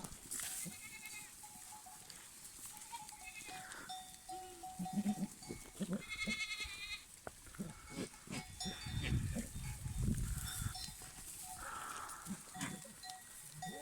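Goats in rut: short bleats and the low grunting of bucks courting females, with goat bells ringing now and then.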